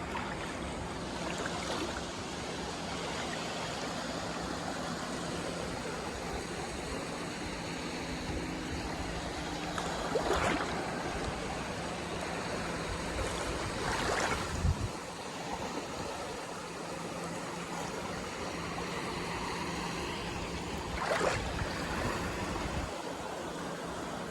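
Sea waves washing steadily against the shore, with louder splashes about ten, fourteen and twenty-one seconds in.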